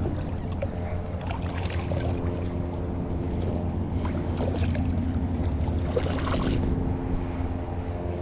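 A motor running steadily, its hum holding an even pitch, with a few brief noisy bursts over it.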